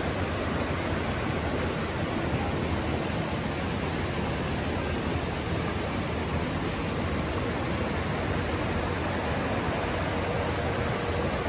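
Whitewater rapids rushing steadily over rock ledges: a constant, even roar of fast water.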